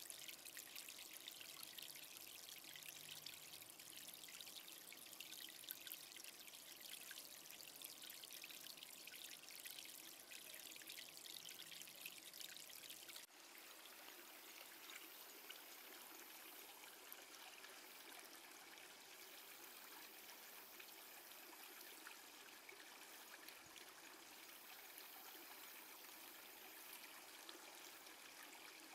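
Faint, steady splashing of water pouring from a small spout into a pond, its tone shifting abruptly about halfway through.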